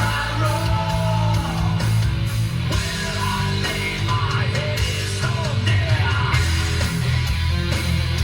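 Rock song with electric guitar, heavy bass and a singing voice playing over a car stereo, recorded in the cabin on a phone.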